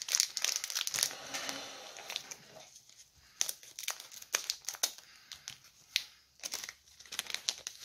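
Foil Pokémon booster pack wrapper crinkling and being torn open by hand, a run of quick, irregular crackles.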